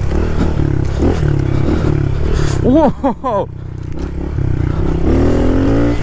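Small motocross bike's engine running under the rider as it is ridden along a winding dirt trail, the revs rising and falling with the throttle and climbing near the end.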